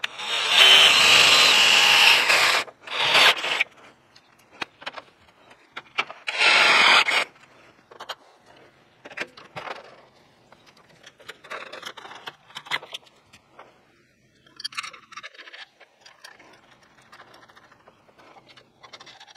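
Cordless drill boring holes in a truck's radiator core support. It runs for about three seconds, gives a short burst, then runs again for about a second. Scattered clicks and knocks of parts and tools being handled follow.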